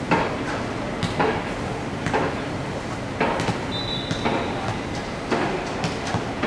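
Open-air ambience of a field hockey match on artificial turf: steady background noise with scattered short knocks and calls about once a second, and a brief high steady tone about four seconds in.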